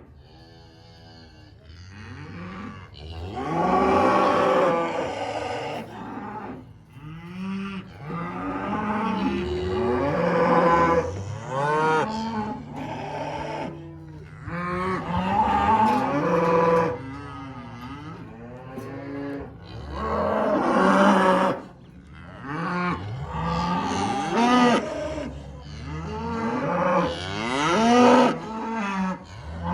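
Cattle mooing and bawling, many loud drawn-out calls overlapping one after another, from a herd being sorted with calves separated from the cows.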